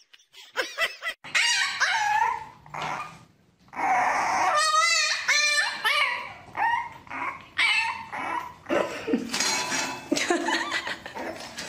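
Dogs whining and yipping in a string of short, high calls whose pitch bends and wavers.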